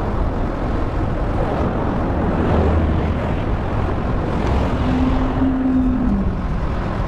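Steady rush of road and wind noise with vehicle traffic, with a short hum about five seconds in that drops in pitch.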